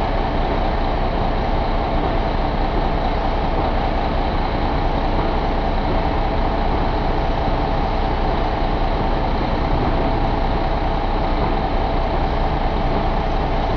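2012 International MaxxForce 13 inline-six diesel engine idling steadily, heard up close at the open engine bay.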